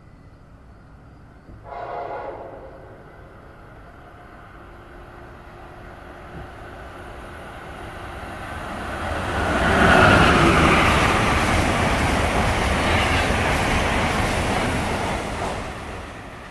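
An Amtrak Northeast Regional train led by a Siemens ACS-64 electric locomotive sounds a short blast of about a second on its K5LA horn about two seconds in. It then runs through the station at speed: a rising rush of wheels and air that peaks about ten seconds in, stays loud for several seconds and fades near the end.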